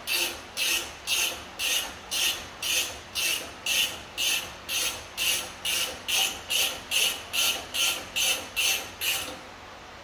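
Hand ratchet worked back and forth on a 15/16-inch (24 mm) nut at the steering knuckle, its pawl rasping on each back-stroke, about two strokes a second; it stops about nine seconds in.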